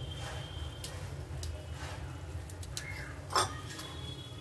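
Semolina roasting in ghee in a frying pan, sizzling faintly over a low steady hum, with one sharp knock about three and a half seconds in.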